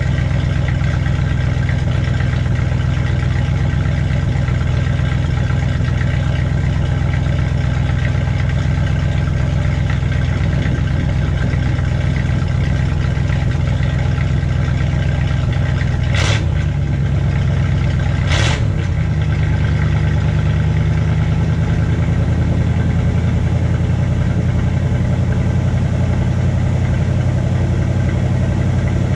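1984 Dodge D150's engine idling steadily through its exhaust, still warming up after a 25-degree cold start. Two brief sharp sounds come about two seconds apart past the middle, and the idle settles a little lower after the second.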